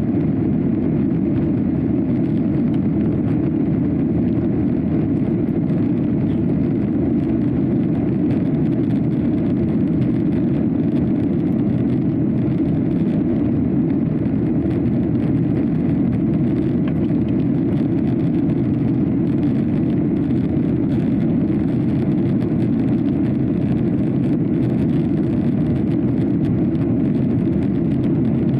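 Steady cabin noise inside a Boeing 737-800 in flight, heard from a window seat over the wing: a low, even rush of the CFM56 turbofans and airflow during the climb after takeoff.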